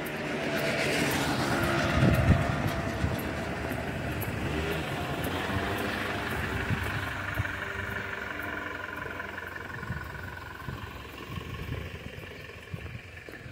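A van driving past close by at low speed: engine and tyre noise that swells over the first two seconds and then slowly fades away.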